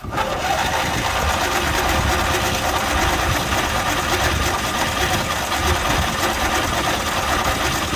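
Murray riding mower's electric starter cranking the engine steadily, with a rapid mechanical chatter that is called a 'stripping out sound'.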